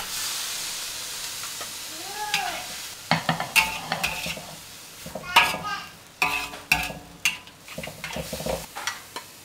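Bean sprouts and dried tofu sizzling in a hot wok, the hiss fading over the first few seconds. Then a metal wok spatula scrapes and knocks against the wok repeatedly as the stir-fry is scooped out.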